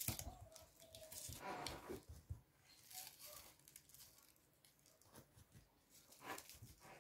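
Faint scattered rustling and light taps of cake crumbs being scooped with a spoon and pressed by hand onto the sides of a cake, a little louder at the start.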